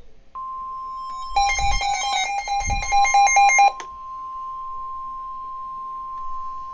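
Weather-radio alert tone: a steady single tone near 1 kHz sounds from under half a second in and holds, the warning alarm tone that announces a new warning message. From about one to nearly four seconds in, a louder burst of rapidly switching electronic beeps plays over it, then cuts off sharply.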